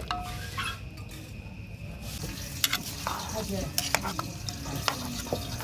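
Food sizzling in a hot cooking pot as it is stirred, the sizzle swelling about two seconds in, with sharp clicks and knocks of the stirring spoon against the pot.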